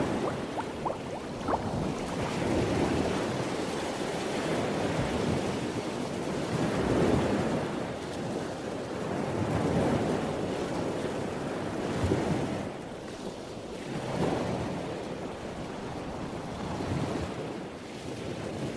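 Ocean surf washing in and out, swelling and ebbing every few seconds.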